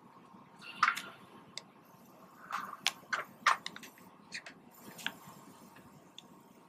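Low, even rumble inside a city bus, with scattered clicks and knocks, a few sharp ones about a second in and between two and four seconds in.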